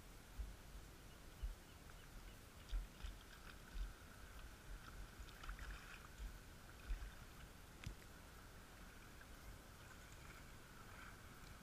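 Faint, muffled low thuds at irregular intervals, with an occasional click, over a faint steady hiss.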